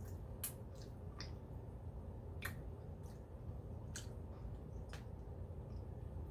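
Close-up eating sounds: a handful of sharp, wet mouth smacks and squishes as meat is sucked and nibbled off a chicken bone held to the lips, over a low steady room hum.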